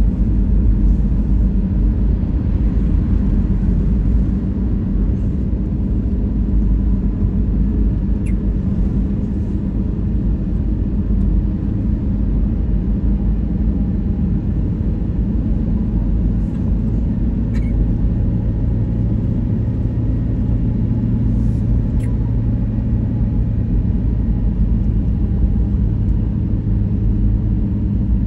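Steady road rumble and tyre noise heard from inside a car cruising on a concrete highway, with a low, even engine hum and three faint ticks.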